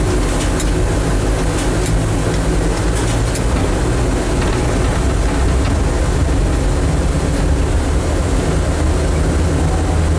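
Vintage electric locomotive running along the track, heard from inside its cab: a steady low rumble of traction motors and wheels on the rails, with a few light clicks in the first few seconds.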